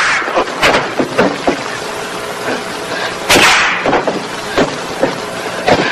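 Martial-arts film fight sound effects: a rapid, uneven series of sharp punch and kick whacks with whooshes, about ten blows, with a longer swish a little past the middle.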